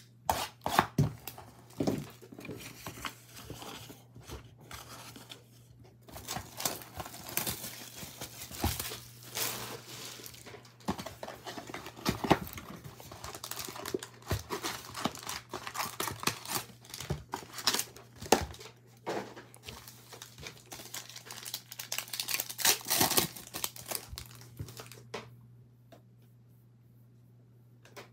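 Plastic shrink-wrap being torn off a sealed box of Panini Prizm No Huddle football cards, then the cardboard lid opened and the foil card packs pulled out and stacked. Irregular tearing, crinkling and sharp handling clicks that stop about three seconds before the end.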